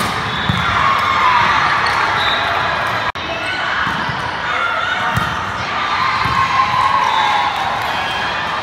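Indoor volleyball rally sounds: ball contacts and players calling out on a gym court. The sound drops out for an instant about three seconds in, at a cut between rallies.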